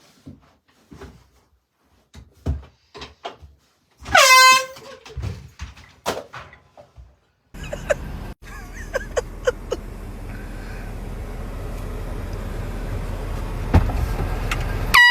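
Air horn blasting once for about half a second, about four seconds in, a loud single note that steps up in pitch as it starts. From about halfway a steady rushing noise builds up, and a second air horn blast begins at the very end.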